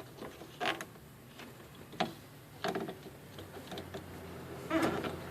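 Four short knocks and creaks of hands handling the camper's fittings while turning the propane gas on.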